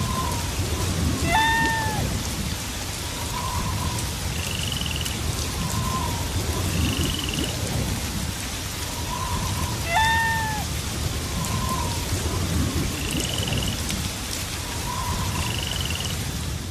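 Thunderstorm ambience: steady heavy rain with a low rumble of thunder underneath. Short calls repeat every couple of seconds, with two louder, bending calls about a second in and again about ten seconds in.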